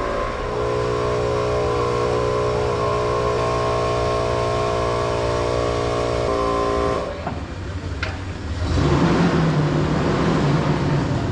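Air compressor running at a steady pitch; about seven seconds in the sound changes and turns rougher, with a loud rushing hiss from about nine seconds in.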